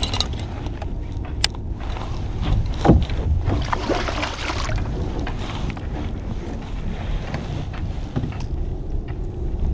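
Wind rumbling on the microphone. There is a knock about three seconds in, then a short rush of noise.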